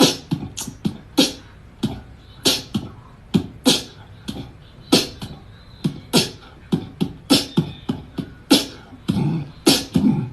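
An irregular series of sharp clicks and knocks, a few a second, some with a dull thud under them.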